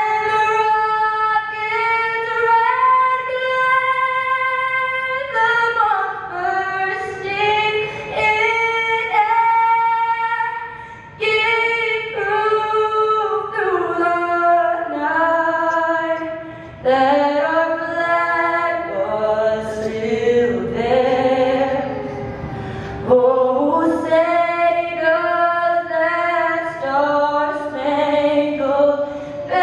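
A young woman singing the national anthem unaccompanied into a handheld microphone, holding long notes.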